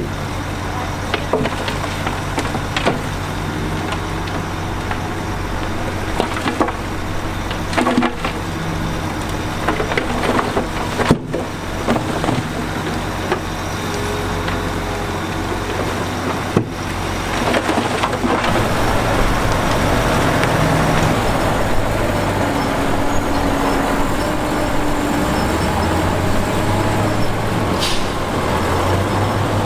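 Heavy diesel earthmoving machinery running, with irregular clanks and knocks of rock and steel. The engine gets louder and its note shifts a few times in the second half.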